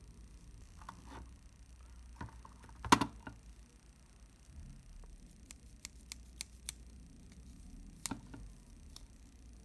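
Handling noise from the small metal parts of a disassembled Plaubel Makina 67 camera's lens and rangefinder mechanism being fitted. The loudest is a sharp knock about three seconds in, then comes a quick run of about six light ticks, and another click near the end.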